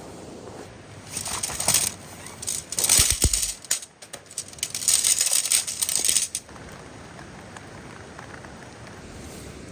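Several bursts of rustling from about one to six seconds in, with a low thump about three seconds in.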